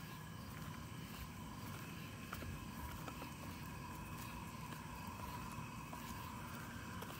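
Faint night-time outdoor ambience: steady insect trilling at a few fixed pitches, with low rumbling and light scuffs and clicks from a phone being carried by someone walking.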